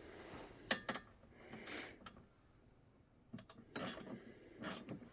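Scattered, faint metal clicks and clinks of hand tools and hardware as brackets and bolts are fitted to a tractor canopy, with a short lull about halfway through.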